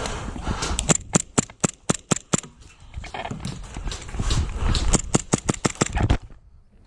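Airsoft gun firing two quick strings of shots, about five or six a second: one about a second in and another near the end. Movement noise comes between the strings, and it goes quiet in the last half second.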